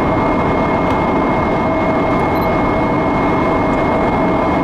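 Steady cockpit noise of a Hawker 900XP business jet on approach: rushing airflow and engine noise with a constant high-pitched whine.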